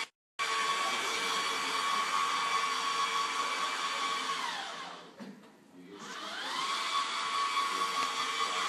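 Wall mural printing machine's motor running with a steady whine, winding down about halfway through, pausing for a moment, then spinning back up to speed.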